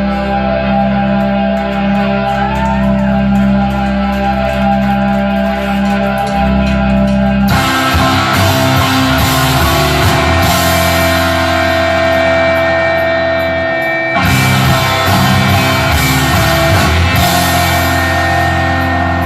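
Live rock band playing an instrumental passage: sustained electric guitar and bass notes over light cymbal taps. About seven and a half seconds in, the full drum kit with cymbals comes in and the band plays at full force, with a brief dip just after fourteen seconds.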